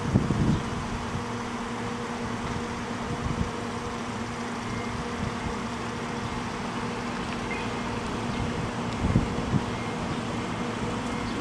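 Steady low hum of an Ichibata Electric Railway 3000 series electric train standing at the platform, its equipment running while it waits. A few low thumps come about half a second in and again near the end.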